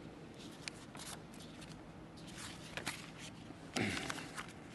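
Paper rustling and light handling at a lectern, soft scattered rustles and clicks picked up by the lectern microphone, with a brief low sound falling in pitch near the end.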